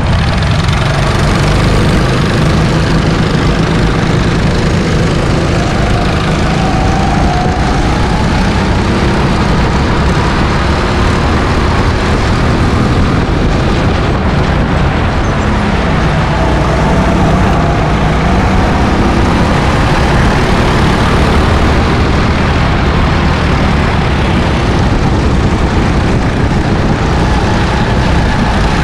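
Go-kart engine heard from on board, running continuously as the kart pulls away and laps the track.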